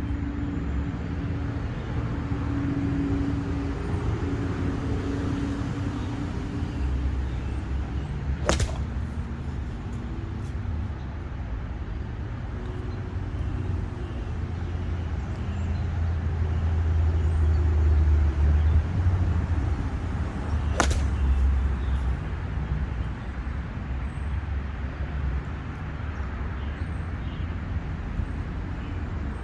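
Golf club striking the ball twice, each a single sharp crack, about twelve seconds apart, over a steady low background rumble.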